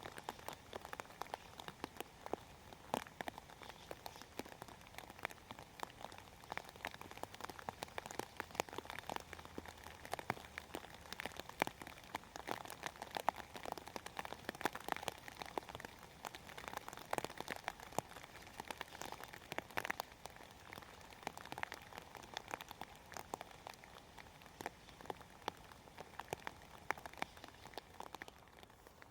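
Rain falling on hydrangea leaves: a steady wash of rain with many separate drops striking close by, irregular and dense.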